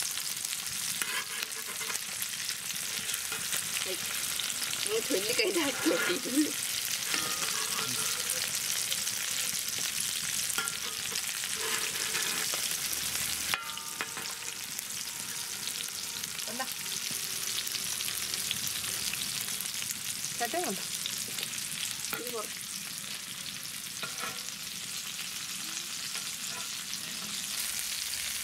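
Masala-coated Indian mackerel shallow-frying in hot oil in a wide metal pan, a steady sizzle throughout, with occasional scrapes and clicks of a metal spatula as the fish are lifted and turned.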